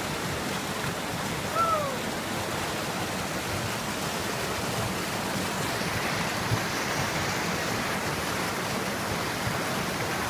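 Steady rush of river water flowing fast, with one short call falling in pitch about one and a half seconds in.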